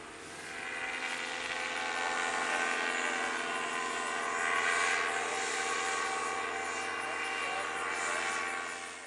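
Paramotor engine and propeller droning steadily, swelling a little about halfway through.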